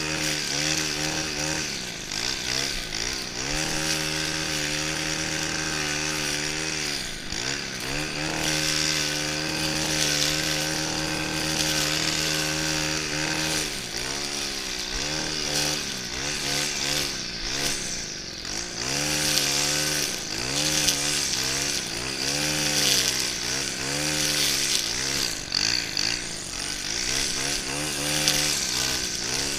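Stihl FS 131 brushcutter's 36cc two-stroke engine running at high speed, its pitch dropping and climbing back several times, then about once a second in the second half.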